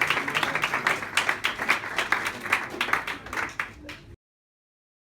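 A small group of people clapping, dying away over about four seconds, then the sound cuts off abruptly into silence.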